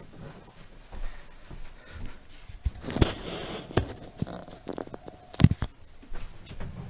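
Handling noise from the camera being picked up and repositioned: scattered knocks and rustling, with a rustle about three seconds in and one sharp knock about five and a half seconds in.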